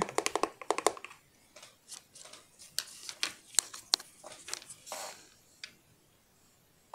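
Light clicks and taps of small painting tools being handled on a tabletop: a quick run of clicks in the first second, then scattered single ticks, stopping a little before the end.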